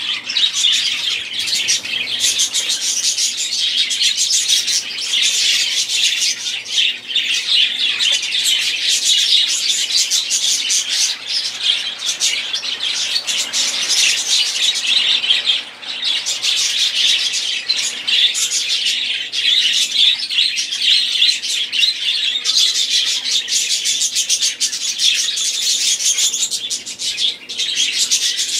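A flock of budgerigars chattering and warbling all at once: a dense, continuous mass of rapid high chirps from many birds.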